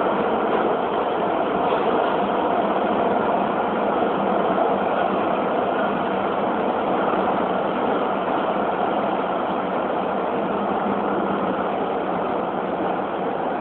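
Beijing Subway Line 8 train running, a steady even noise of the moving train.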